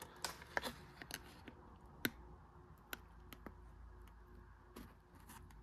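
A few scattered sharp clicks and small crinkles as a sealed, vacuum-packed Pop-Tart wrapper from a ration is handled and worked open. The loudest click comes about two seconds in.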